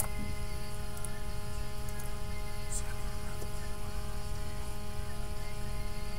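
Steady electrical mains hum and buzz, a constant drone of many fixed tones, with a faint tick near the middle.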